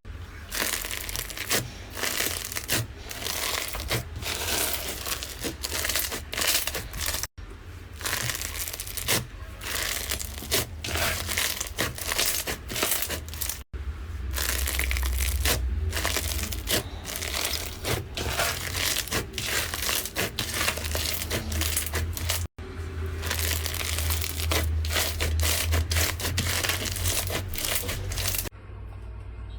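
Slime being squeezed and pressed by hand, close to the microphone: dense, irregular crackling and popping. The sound drops out three times for an instant.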